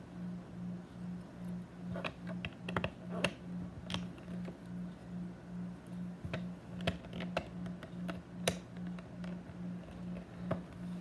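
Scattered light clicks and taps of small pieces being handled and set in place, over a steady low hum that pulses about two and a half times a second.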